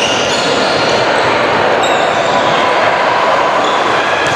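Sound of a basketball game in a gym: a basketball bouncing against a steady din of players' and spectators' voices.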